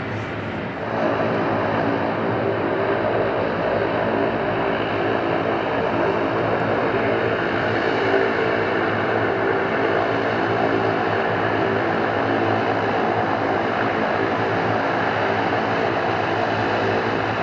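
ATR 42 turboprop taxiing, its twin propeller engines running with a steady drone made of many layered tones. It gets louder about a second in and then holds steady.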